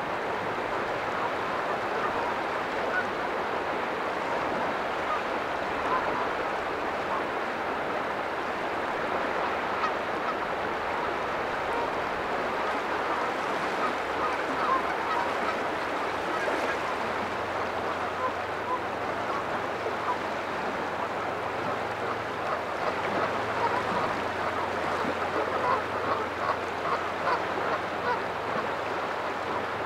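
Sea water washing against a rocky shoreline, with short animal calls repeated over it, coming more often and more prominently in the last few seconds.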